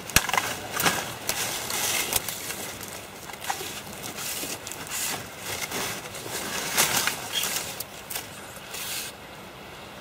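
Close rustling and crackling of clothing and gear against the microphone as a long pole rod is handled, with a few sharp clicks. It stops about nine seconds in.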